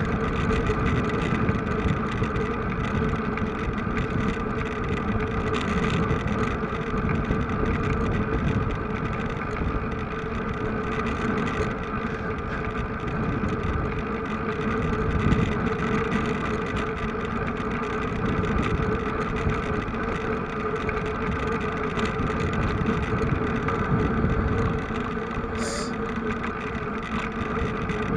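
Vehicle engine running at a steady, unchanging pitch, with a dense low rumble. A brief click comes near the end.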